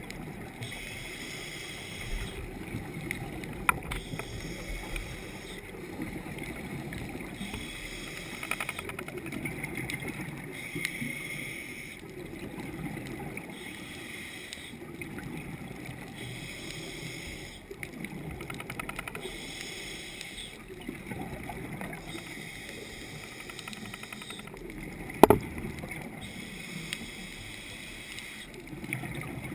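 Muffled underwater rumble and hiss heard through a submerged camera, with a hissing band that rises and falls about every four seconds. Two sharp knocks cut through, one early and a louder one near the end.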